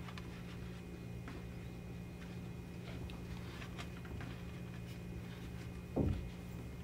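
Quiet room hum with a few faint soft taps from breadcrumb-coated plantain slices being laid by hand into a disposable aluminium foil pan. A brief vocal sound about six seconds in.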